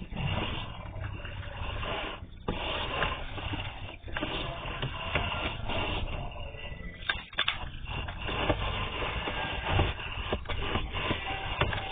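Sewer inspection camera's push cable being fed through a PVC sewer line, with continuous irregular scraping and rubbing and frequent small knocks.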